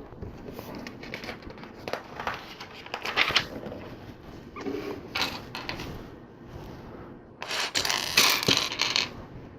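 Small plastic LEGO pieces clicking and rattling under the hands as they are handled and fitted together, with a denser, louder clatter late on.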